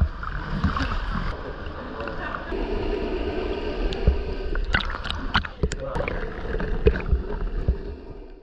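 Sea water sloshing and gurgling around an action camera at the waterline, then the muffled sound of the camera underwater with a swimmer's movements. Scattered sharp clicks and knocks run through it, most of them in the second half.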